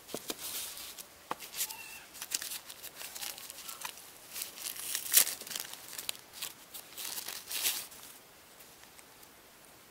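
White protective paper wrapping being pulled open and handled to free a flat adhesive camera mount: a run of paper rustles and crackles for about eight seconds, loudest around the middle and again near the end, then stopping.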